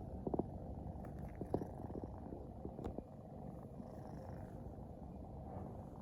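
Sphynx kitten purring close to the microphone, a steady low rumble, with a few soft clicks in the first half.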